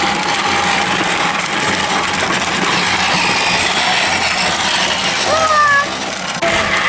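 Small 6-volt electric motor and gearbox of a toddler's ride-on quad bike running with a steady whine that fades after about a second, over continuous rumbling noise. A child's short vocal sound comes about five seconds in.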